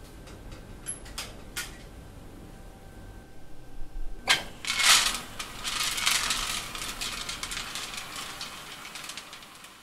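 A few sharp metal clicks, then an enamel ball mill started at a push button: a click, and as the drum begins to turn the charge inside rattles and clatters in a dense, fast stream that slowly fades.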